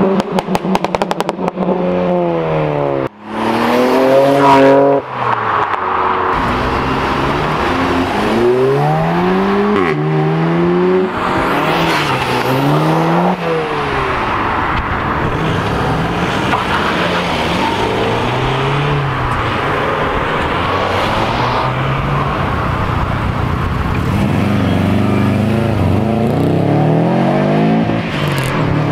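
Modified cars accelerating hard away one after another, engines revving up through the gears with a drop in pitch at each change, again and again. A rapid stuttering crackle comes right at the start, and the loudest hard rev climbs a few seconds in.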